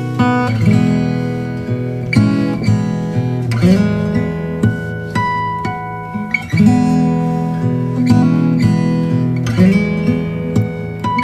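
Background music: acoustic guitar, plucked and strummed, with sustained chords.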